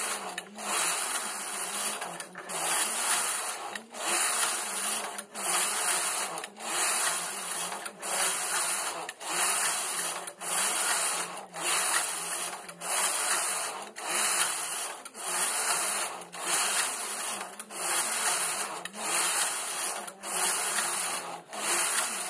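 Domestic flatbed knitting machine carriage being pushed back and forth across the needle bed, each pass a rasping, clattering sweep of the needles, with a short pause at each end, about one pass every 1.3 seconds. It is knitting a punch-card tuck-stitch pattern.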